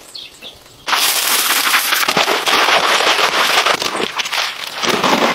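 Wet concrete being poured into a wooden form and worked with a wooden stick: a dense, gritty crackling and scraping that starts abruptly about a second in.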